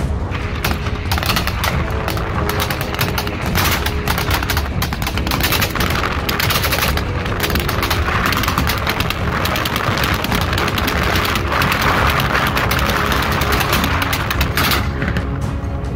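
Rapid automatic gunfire, many shots in quick succession with no long pauses, over background music.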